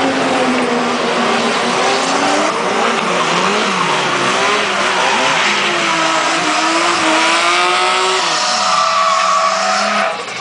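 Drift car engine revving hard, its pitch rising and falling, with tyres squealing through a long slide. The noise drops off suddenly near the end.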